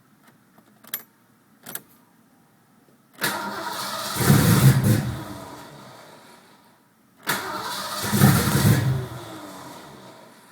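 Two light clicks, then a Ford Mustang 5.0 V8 turned over twice on the starter, each attempt about three seconds long, swelling and then fading. The engine is hard to start, a fault the owner wonders may be an ignition coil problem.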